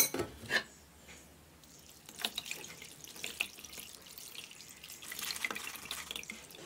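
A sharp knock at the start, then from about two seconds in water is poured in a thin stream over pumpkin seeds in a metal mesh strainer, splashing and trickling through into the plastic bowl beneath.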